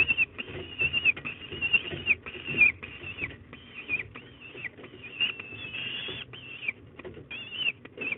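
Young peregrine falcons calling over and over: a string of high, wavering calls, each under a second long. Short sharp knocks and scratches come in between.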